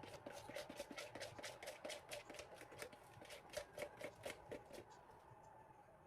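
A spoon or whisk stirring cornbread batter in a bowl: faint quick strokes, about five a second, that stop about five seconds in.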